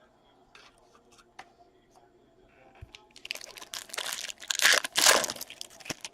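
Foil wrapper of a Topps Chrome baseball card pack being torn open and crinkled, starting about three seconds in and loudest near the end, after a few faint clicks.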